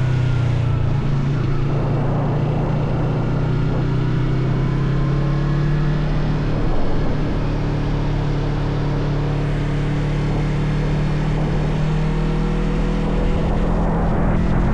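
Motorcycle engine running at road speed under a rush of wind noise. The engine note drops about a second in, holds steady, then rises gently toward the end.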